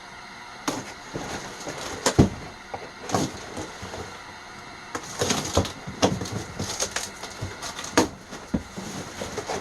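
Packaging being handled and pulled apart around a boxed water-heater door kit: irregular crinkling, crackling and snapping, busier in the second half.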